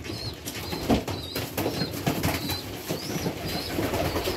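Pigeons cooing in a loft, with a few sharp wing flaps or taps about a second in. Faint high chirps repeat about twice a second throughout.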